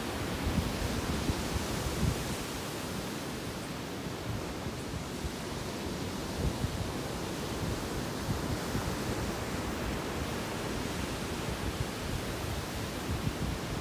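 Sea surf washing steadily onto a beach, with wind gusting against the microphone.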